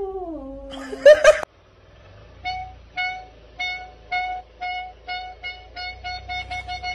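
A cat's meow falls in pitch, then a short loud cat cry about a second in. A car's reversing parking sensor beeps, the beeps coming faster and faster until nearly continuous as the car nears the obstacle behind it.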